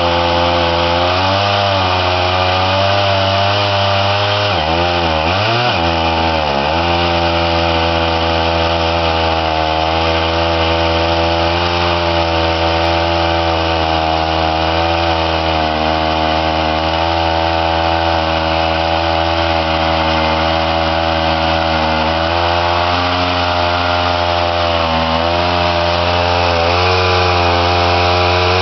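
Petrol chainsaw mill cutting lumber: the two-stroke chainsaw engine runs steadily at high revs under load, its pitch dipping briefly about five seconds in and then recovering, with smaller wavers near the end.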